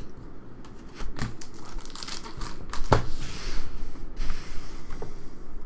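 Foil wrapper of a trading card pack crinkling and tearing as it is ripped open, with scattered crackles and a longer rasping tear about three to four seconds in.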